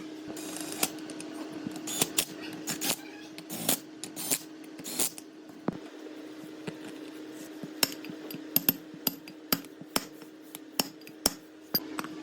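Metal parts and hand tools clinking and tapping on a workbench in an irregular series of sharp clicks and knocks, with a steady low hum underneath.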